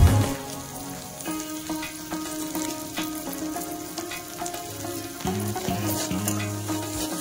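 Spiced mixture sizzling in an iron kadhai as a metal spatula stirs and scrapes it against the pan, with faint background music.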